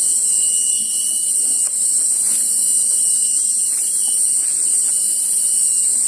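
Cicadas droning in the forest: a loud, steady, very high-pitched buzzing that slowly swells and eases.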